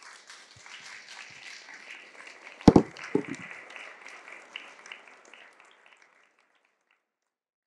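Audience applauding, dying away about six seconds in. A loud thump cuts through the clapping about two and a half seconds in, and a softer one follows just after.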